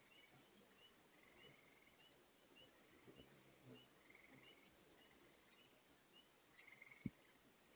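Faint outdoor ambience: the distant rush of a spring far below, with high squeaky chips from hummingbirds squabbling at the feeders, mostly in the second half. Over it run a soft chirp repeated about twice a second and short buzzy trills every couple of seconds, and a single sharp click comes near the end.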